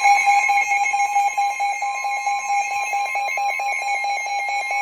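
Emergency Alert System attention signal: a loud, steady two-tone alarm with a fast flutter, announcing a warning broadcast.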